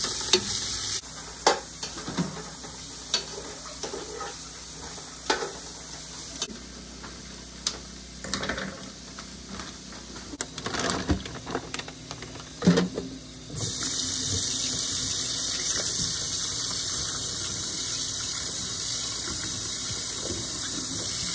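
Kitchen faucet running steadily into a bowl of shrimp being rinsed by hand in a stainless steel sink; the water starts about two-thirds of the way in and is the loudest sound. Before that, a moment of onions sizzling in a pot, then scattered clicks and knocks of handling at the sink.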